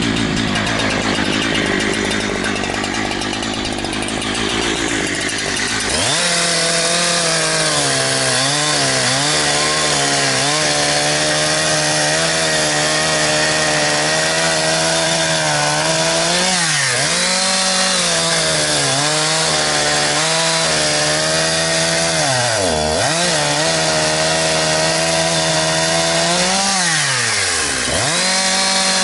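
Holzfforma G372 XP two-stroke chainsaw, a clone of the Husqvarna 372 XP, cutting wood. It runs lower and rougher at first, then revs sharply to full throttle about six seconds in. From there its pitch dips and recovers several times, dropping deeply twice near the end.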